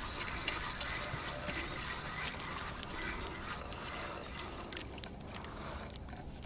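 A hooked fish splashing at the surface close to the bank as it is reeled in, over a steady background hiss, with a few sharp splashes about five seconds in.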